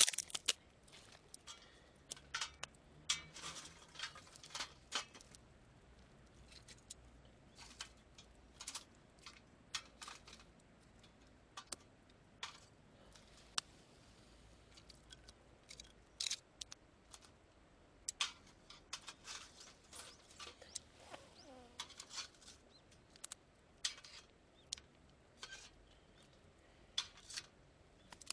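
Irregular sharp clicks and crackles, a few a second and uneven in loudness: twigs burning in a small wood-fired camp stove, with metal tongs clicking as they are handled.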